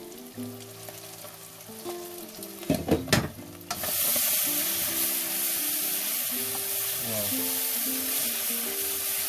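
Spiced tuna and onion frying in a wok, stirred with a wooden spatula: a couple of sharp knocks about three seconds in, then a loud, steady sizzle that starts suddenly and holds. Soft background music underneath.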